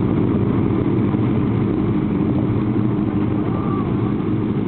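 Several Honda CBX 750F motorcycles idling together, their air-cooled inline-four engines making a steady, even rumble.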